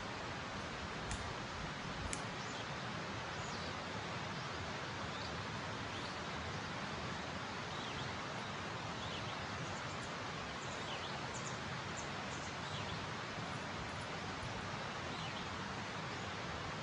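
Steady outdoor hiss with faint, scattered high bird chirps, a few of them falling in pitch, and a few light clicks in the first couple of seconds.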